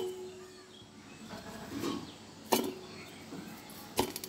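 Sharp knocks against a steel bowl on the tabletop as clay is handled, one about two and a half seconds in and another near the end. The first leaves a short ring, and the ring of an earlier knock fades away at the start.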